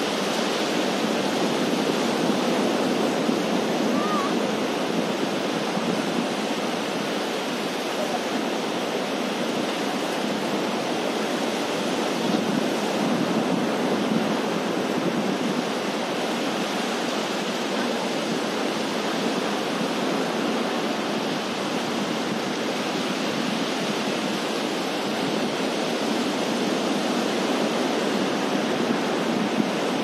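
Surf breaking on a sandy beach: a steady wash of waves rolling in, with no gaps.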